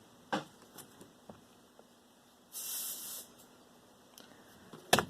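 Small handling noises while a cabinet door handle is positioned: a light tap, then about a second in the middle of a brief scratchy hiss, then a sharp click near the end.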